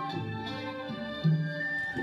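Instrumental background music: sustained melodic notes over a recurring low drum hit.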